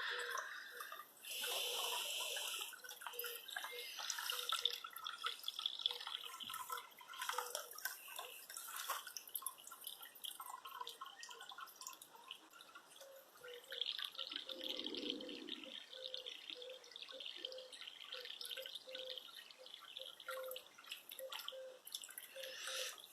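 Water dripping from rain-soaked leaves and shrubs after a downpour: scattered, irregular drops, faint overall.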